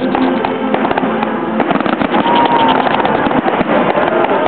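Aerial fireworks shells bursting: a dense run of crackling cracks and bangs, with a short whistle about two seconds in.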